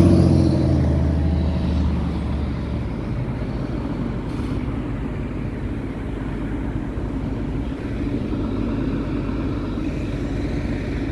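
Fire department ladder truck's diesel engine running as it passes close and pulls away, its low drone fading over the first two or three seconds. A steady, quieter rumble of street traffic follows.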